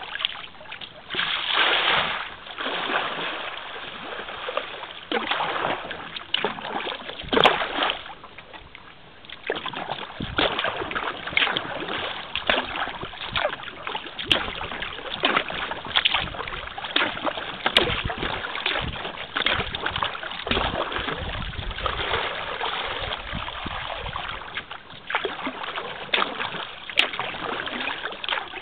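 Kayak paddle strokes splashing and dripping in calm river water, with water washing along the hull, in an uneven run of swells and a few sharp clicks.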